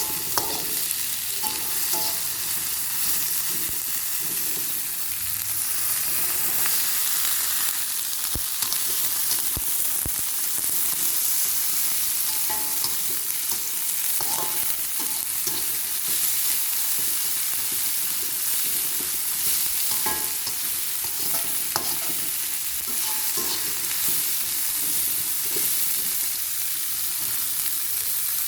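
Food sizzling in hot oil in a pan while being stir-fried, a steady hiss with scattered clicks and scrapes of the spatula against the pan.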